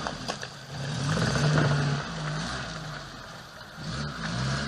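Off-road 4x4's engine revving up and easing off in surges, its pitch climbing about half a second in and again near the end.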